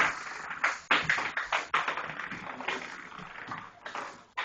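A puppy playing with a ball on a hard floor: a quick, irregular run of taps and knocks.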